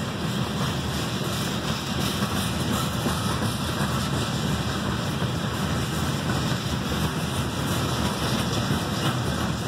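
Freight train's tank cars and covered hoppers rolling steadily past: continuous noise of steel wheels on the rails, with faint clicks.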